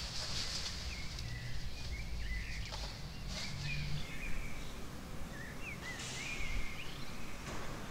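Rustling of clothes and bags being handled, coming in patches, over a low hum, with faint short chirps recurring in the background.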